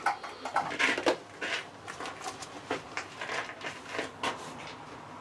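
Irregular light clicks, knocks and rustling of things being handled, with no steady machine running.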